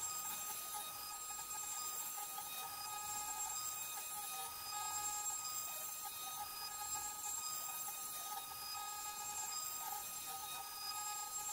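A CNC 3018 Pro router's spindle motor whines steadily as its end mill cuts a pocket in a wooden block. Higher tones switch on and off as the machine moves along its axes.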